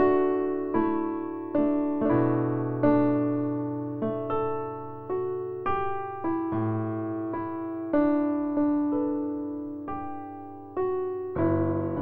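Slow background piano music: single notes struck about once a second, each fading away over a held low bass note, with a louder chord near the end.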